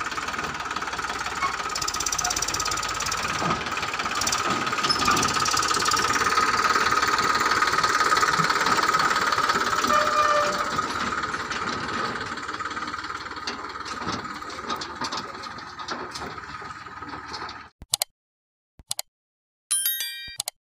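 Eicher 333 tractor's diesel engine running with a clattering knock while hauling a loaded tipping trolley. It swells to its loudest in the middle, then eases off and cuts out abruptly near the end, followed by a few sharp clicks and short chiming dings.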